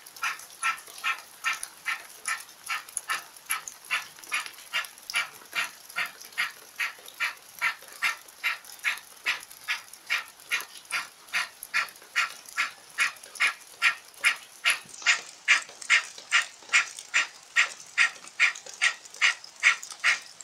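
Fire breath (pranayama): rapid, forceful rhythmic breathing through the open mouth, like hard panting, at about two breaths a second, getting louder in the second half.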